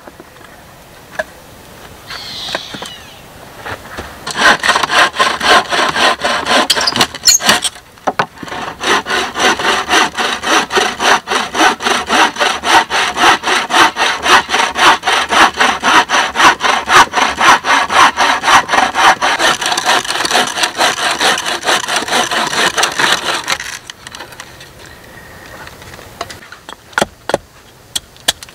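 Hand saw cutting through wood in fast, steady back-and-forth strokes, with a short pause about 8 seconds in; the sawing stops near 24 seconds, followed by a few sharp knocks of a hatchet on wood near the end.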